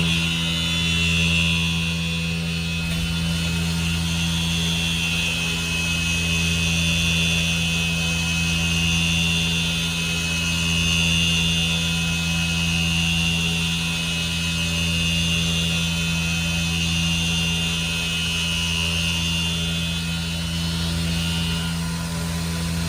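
CNC mill running a carbide end mill through counterbores in an aluminium fixture: a steady high whine over a constant low machine hum, the whine stopping near the end.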